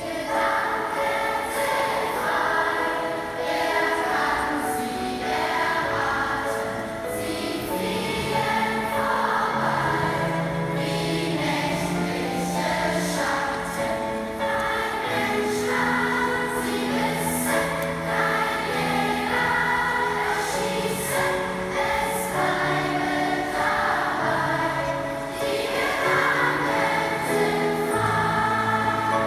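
Music with a choir singing held notes over an accompaniment with a moving bass line.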